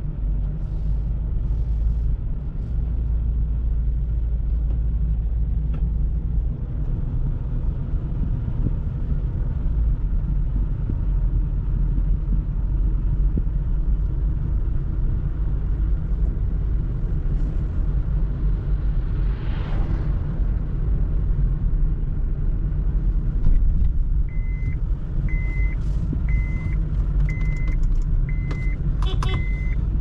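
Steady low engine and road rumble of a car being driven, heard from inside. Near the end, six short, even electronic beeps about a second apart.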